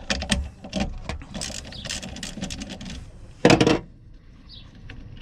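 Metal clicks and rattles of a battery hold-down bar, its threaded rods and wing nut being handled and fitted over a small car battery, with one louder clatter about three and a half seconds in.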